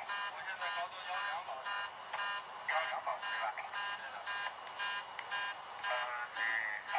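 Cockpit voice recorder audio from a Boeing 737-300 flight deck: a cockpit warning tone beeping over and over, about three times a second, with crew voices over it.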